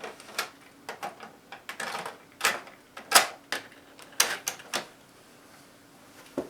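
Plastic clicks and knocks from handling a Toshiba RT-SWU9 cassette boombox and working its controls: a quick, irregular run of them for about five seconds, then one more click near the end.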